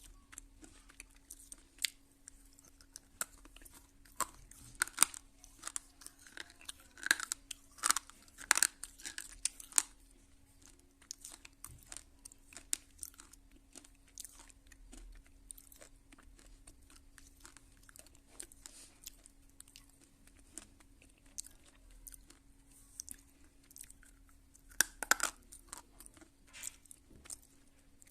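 A slate pencil being bitten and chewed close up: sharp crunching snaps, loudest and thickest from about four to ten seconds in and again near the end, with quieter, sparser chewing crunches between. A faint steady hum runs underneath.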